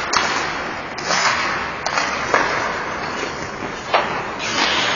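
Ice hockey play: skate blades scraping and carving on the ice, with several sharp clacks of sticks and puck.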